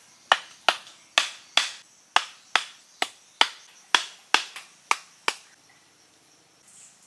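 Wooden mallet hammering thin wooden stakes into sandy ground: about a dozen sharp knocks at a steady two to three a second, stopping a little after five seconds in.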